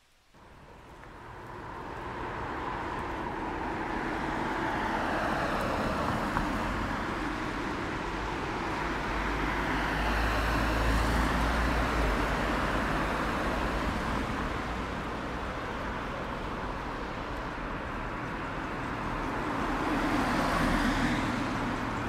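Road traffic noise, vehicles passing and swelling in and out. It starts suddenly, then grows loudest about ten seconds in and again near the end.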